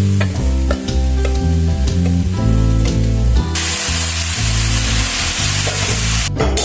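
Background music plays throughout. About halfway through, loud sizzling of food frying in a hot pan starts suddenly and stops shortly before the end.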